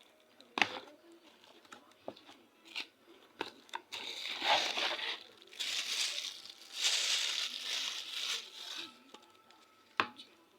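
Packaging being crinkled and torn open: a few sharp clicks and taps, then two long stretches of rustling crinkle in the middle, and one more sharp click near the end.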